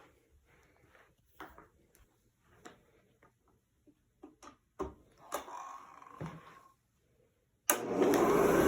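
Faint scattered clicks and knocks of handling, then near the end a vintage Hoover model 634 upright vacuum cleaner switches on suddenly and runs loud and steady.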